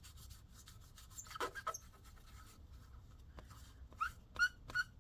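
An animal's short high-pitched whining cries, one pair about a second and a half in and several more in the last second, over faint rubbing of a paper towel being wiped across the chip.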